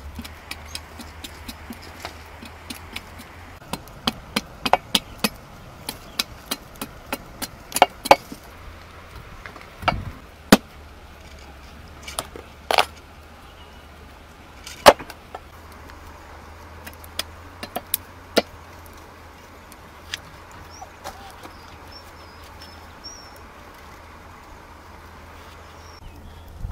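A large knife chopping a pumpkin on a wooden stump block: irregular sharp knocks, often several in quick succession, the loudest about fifteen seconds in. The chopping stops after about eighteen seconds, leaving a faint steady hum.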